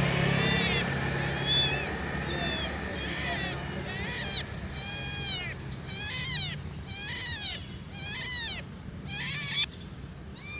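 Kitten meowing repeatedly, short high-pitched mews that rise and fall in pitch, about one a second, growing louder about three seconds in.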